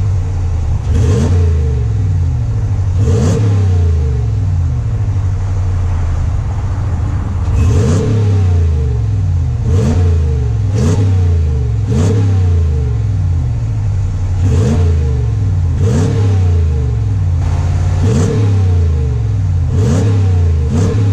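A 2020 Ram 1500's 5.7-liter Hemi V8 idling through its stock exhaust at the tailpipes and blipped about eleven times. Each rev rises quickly and drops back to idle, some in quick pairs, heard through a GoPro microphone.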